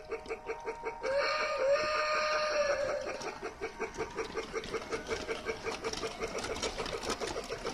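Toy train's sound effects: a rhythmic chugging of about five beats a second, with a wavering steam-whistle sound blowing from about one second in until about three seconds in.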